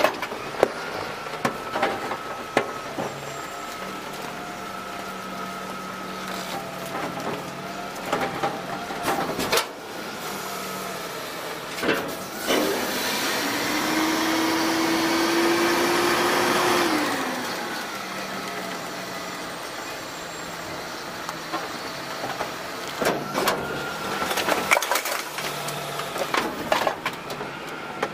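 DaDee Scorpion automated side-loader garbage truck working: the engine and hydraulics run steadily, revving up under load for about five seconds in the middle as the packer blade sweeps through the hopper, then settle back. Knocks and clatter of trash and metal come at the start, and a burst of clatter near the end as a cart's load of trash drops into the hopper.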